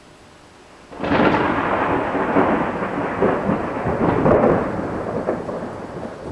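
Thunder: a sudden loud crack about a second in, breaking into a long crackling, rolling rumble that slowly fades.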